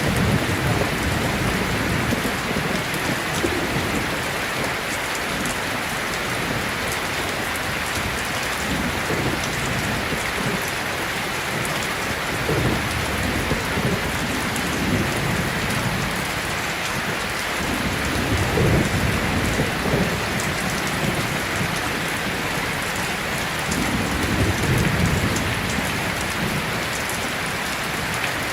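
Steady heavy rain, with low rumbles of thunder that swell and fade several times.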